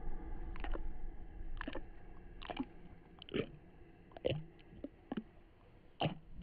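Dark ambient sound-design track. A steady droning tone fades out over the first three seconds, while short, sharp crunching sounds repeat about once a second.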